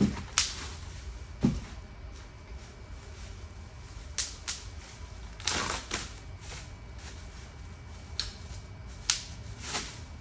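Scattered clicks and knocks with a brief scraping rustle as parts of a new wheelchair are handled and fitted, metal and plastic pieces tapping and snapping against the frame.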